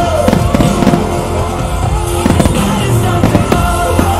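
Rock music played loud over the show's sound system, with aerial firework shells bursting repeatedly through it.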